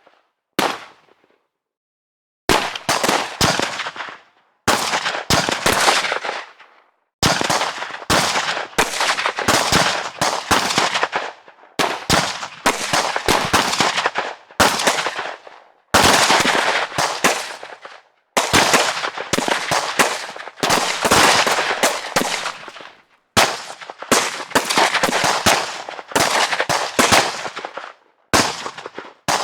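Bursts of rapid automatic gunfire, each burst lasting one to three seconds with short pauses between, the shots ringing out with an echoing tail; a single shot comes first, followed by a brief gap before the bursts begin.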